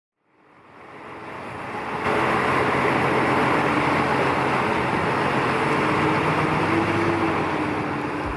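Boat engine running under way with a steady rush of wind and water, fading in over about the first two seconds.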